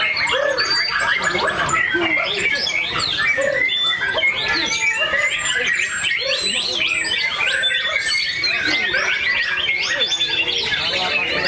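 Caged white-rumped shamas (murai batu) singing together in a contest: a dense, continuous mix of rapid whistles, chirps and trills, with people's voices underneath.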